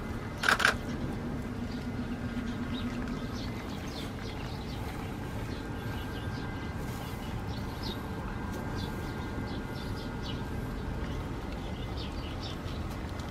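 San'in Shiba dog biting and licking at a whole Nijisseiki pear: one loud crisp crunch about half a second in, then faint scattered wet clicks of licking and gnawing.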